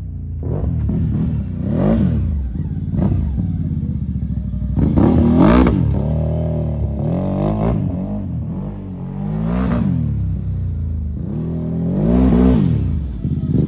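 CFMOTO CFORCE 1000 ATV's V-twin engine, through an aftermarket RJWC exhaust, revving up and down under throttle as the quad is ridden, its pitch rising and falling about six times.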